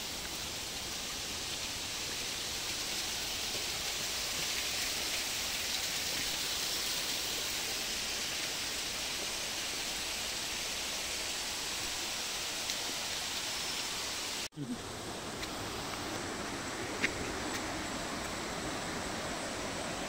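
Steady rushing hiss of water from a rocky forest stream running in small cascades below a waterfall. It cuts out for a split second about three-quarters of the way through, then comes back fuller and lower.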